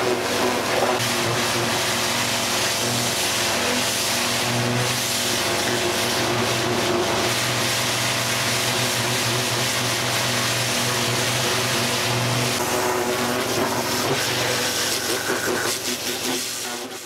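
Pressure washer running steadily: the pump's constant hum under the hiss of the high-pressure water jet spraying onto a vehicle's bodywork.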